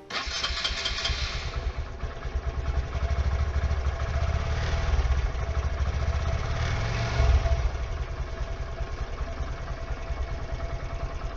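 Honda MSX125 single-cylinder four-stroke engine running at idle, with a couple of brief rises in revs about halfway through.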